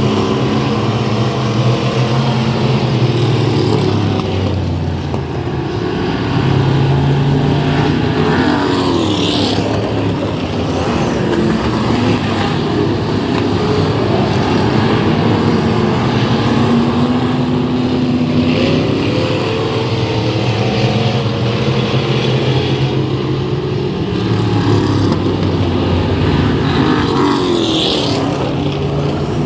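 Several race car engines running on a track, loud throughout, their pitch rising and falling as the cars accelerate, lift and pass.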